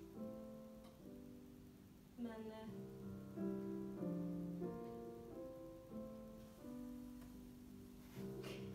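Piano playing a slow, soft accompaniment passage, a few held notes at a time changing every half second or so.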